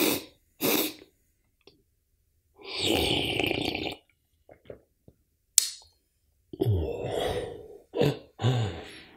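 A man slurps coffee noisily from a mug for about a second and a half, after a couple of short breaths. A sharp click follows, then several throaty groans and sighs of relish after the sip.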